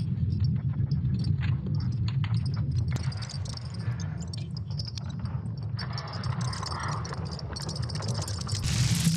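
Electronic intro sound bed: a steady low hum with scattered crackles and high, glittering ticks that thicken near the end.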